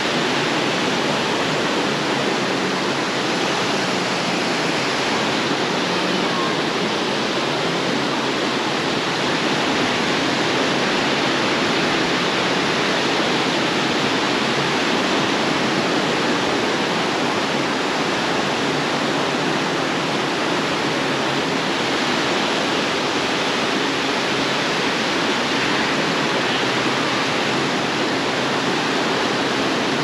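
Steady rushing of surf breaking along a sandy beach, an even hiss with no single wave standing out.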